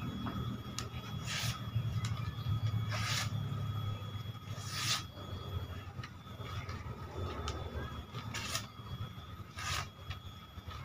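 A sheet of paper rustling in short swishes, about five times, as it is handled against a katana blade, over a steady low rumble.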